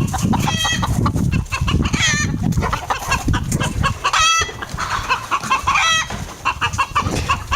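A flock of chickens clucking and squawking over and over, agitated as they are chased. A loud low rumbling noise runs underneath the calls.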